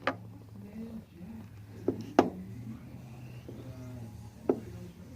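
A few short, sharp clicks and taps of small tools working on a rebuildable vape atomizer coil build, over a steady low hum.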